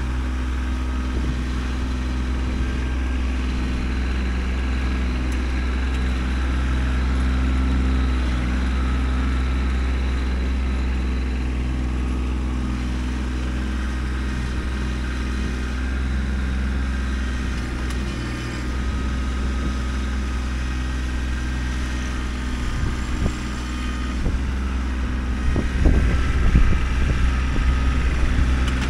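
Kubota B2620 compact tractor's three-cylinder diesel engine running steadily, with a run of knocks and rattles near the end.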